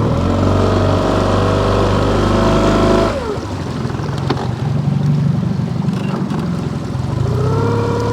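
Boat's outboard motor throttled up to a steady run, dropping back down about three seconds in, then throttling up again and holding steady near the end.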